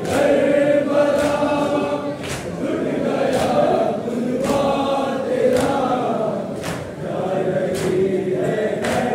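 A group of men chanting a noha, a Shia mourning lament, in unison. Sharp slaps of matam, the rhythmic beating of the chest with the hands, fall on the beat about once a second.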